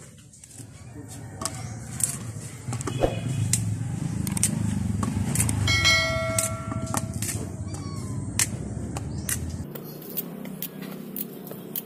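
Green cooking bananas dropped one at a time into an empty metal pot, making a series of knocks and clatters. A short ringing tone comes about six seconds in, over a low rumble that cuts off near the end.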